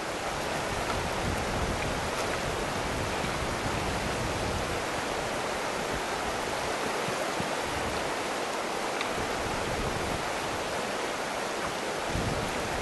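Steady rush of a fast, shallow river running over stones.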